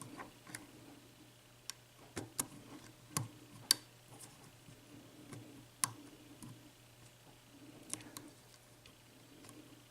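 Light, irregular clicks and ticks of a lock pick and tension wrench working the pin stack of a Corbin Russwin interchangeable-core lock cylinder, about a dozen sharp clicks scattered through, over a faint low hum.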